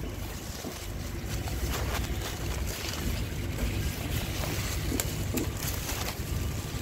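Wind buffeting the microphone: a steady low rumble with scattered light crackles.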